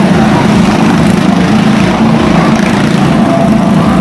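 Two motorcycles running at speed around a wooden wall-of-death drum, their engines loud and steady with no letup.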